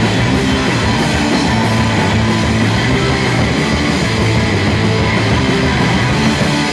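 Punk rock band playing loud and live: distorted electric guitars, bass, and a Premier drum kit with crashing cymbals in a dense, steady wall of sound. The band stops abruptly at the very end.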